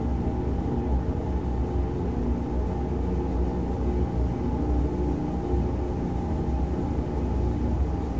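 Ambient electronic music slowed five times by granular time-stretching: a dense, steady drone of held low tones with a deep rumble underneath and almost nothing high.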